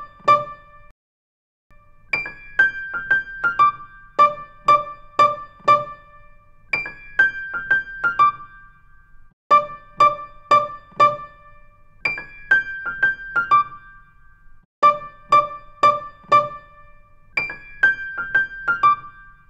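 Background music: a piano playing a short phrase of a few notes that repeats about every two and a half seconds, with a brief pause about a second in.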